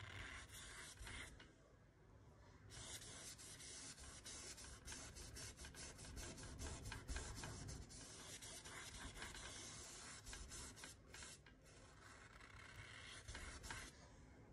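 Faint scratchy rubbing of a small paintbrush stroking brown paint onto canvas, filling in a painted face, with a brief pause about one and a half seconds in.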